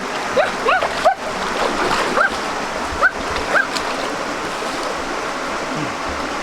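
Water rushing steadily in a stream, with about ten short chirping calls that sweep up and fall back, coming every third of a second or so and dying out after about three and a half seconds.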